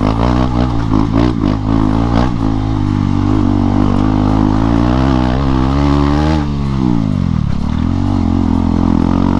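KTM Duke 250's single-cylinder engine running with its silencer removed, an open, unmuffled exhaust note while under way. About five seconds in the revs climb for a second or so, then drop away and settle back to a steady pull.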